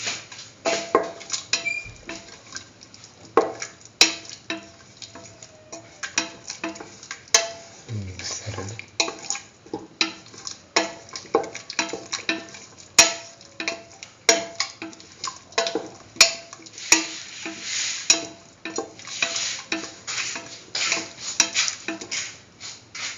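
A spoon stirring a chicken, potato and mustard-paste mixture in a cooking pot, with many irregular scrapes and knocks against the pot.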